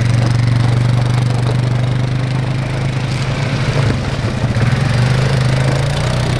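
ATV engines running: a steady engine hum from a quad close by while other quads pull away over gravel.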